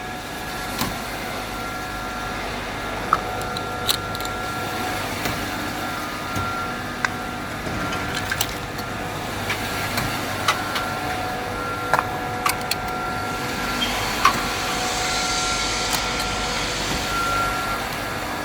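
A large cube ice machine running: a steady mechanical drone with a faint high whine, broken by scattered sharp clicks and knocks.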